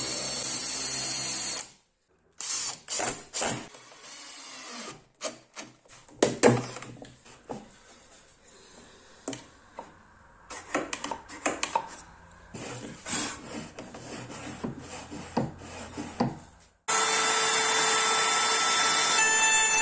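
Makita cordless drill running briefly as it drives a screw, then about fifteen seconds of scattered knocks and clicks of wooden parts and tools being handled. Near the end, a trim router mounted under a small plywood table starts abruptly and runs steadily at full speed, a loud motor sound with a few steady tones.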